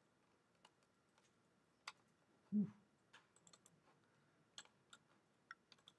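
Faint, scattered clicks of a computer mouse and keyboard, about a dozen spread irregularly, with a short hum of a voice about two and a half seconds in.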